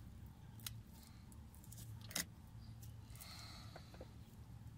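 A few faint metallic clicks of circlip pliers working the spring clip on a fuel-filter hose, the sharpest about two seconds in, over a low steady hum.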